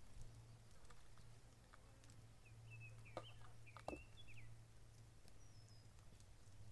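Near silence: a low steady hum with a few faint bird chirps, short and quick, bunched about halfway through. Two soft clicks fall among them.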